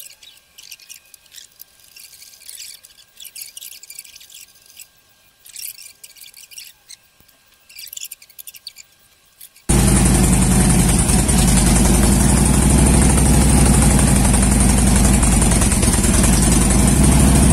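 Faint scattered clinks and knocks of hand work on the battery of a 2009 Harley-Davidson Electra Glide Police. About ten seconds in they give way abruptly to the motorcycle's V-twin engine running loud and steady on its newly fitted battery.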